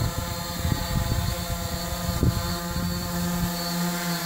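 A quadcopter with four T-motor 650 kV motors spinning 12x6 Graupner E propellers, flying low. Its propellers make a steady, multi-tone whirring hum, with wind buffeting the microphone underneath.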